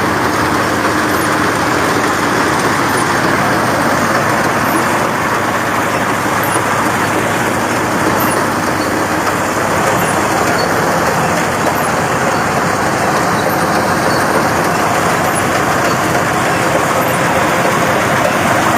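Mini combine harvester running steadily while harvesting rice, a loud, even mechanical drone with no breaks.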